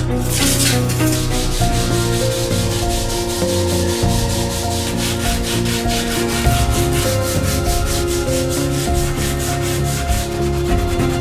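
Sandpaper rubbing back and forth on a part of an old folding knife during its restoration, in quick even strokes about four to five a second.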